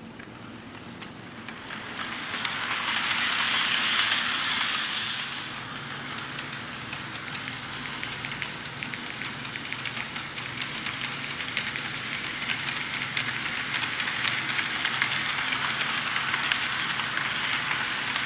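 Model subway train running along its track, a steady whirring hiss of motor and wheels with rapid clicking, louder as it passes close about two to five seconds in.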